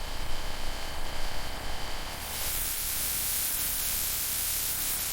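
Steady hissing noise like static, uneven for about the first two seconds, then settling into an even, brighter hiss.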